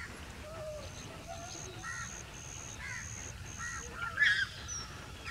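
Dholes feeding at a kill, giving short squeaky yelps and chattering calls, with one louder wavering squeal about four seconds in.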